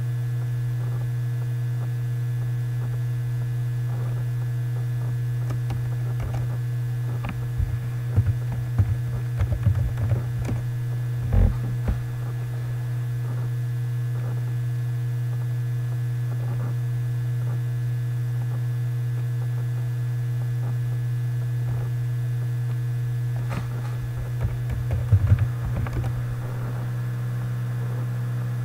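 Steady low electrical hum, with two spells of computer keyboard typing and clicks, one about a third of the way in and one near the end.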